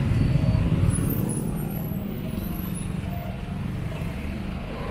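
Street traffic passing close by: car and truck engines with tyre noise, a low rumble that is heaviest in the first second or two and then eases to a steadier level.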